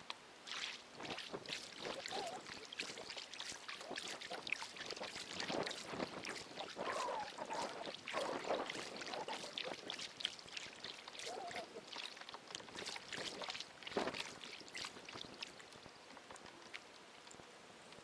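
Water splashing and gurgling close to a kayak in quick, irregular bursts, dying away about 16 seconds in.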